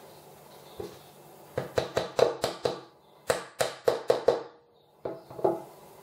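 Thin laser-cut plywood pieces clicking and tapping against each other and the wooden tabletop as they are pushed together by hand: two quick runs of about six sharp wooden knocks, then two more near the end.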